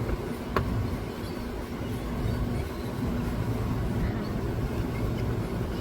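Steady low rumble of a running motor vehicle, with a faint held hum and a few light ticks and chirps over it.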